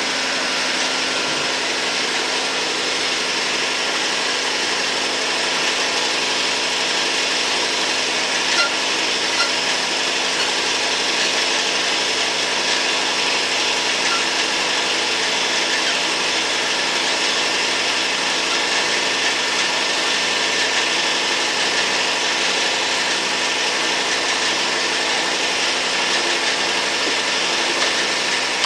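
Milling machine cutting an aluminum block: a steady hum from the spindle and motor under a continuous hiss from the cutter, with a few small ticks about a third of the way through.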